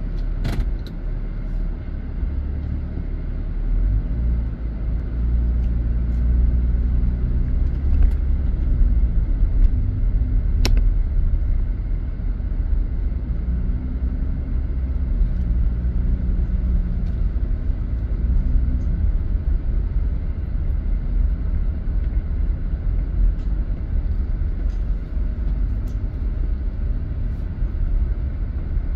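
Car engine and road noise heard from inside the cabin while driving slowly: a steady low rumble, with one sharp click about ten seconds in.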